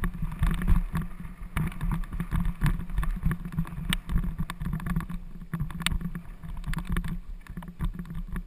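Mountain bike rattling and jolting over a stone-flag path: a dense, uneven run of knocks and clatters over a low rumble, easing off near the end as the bike slows.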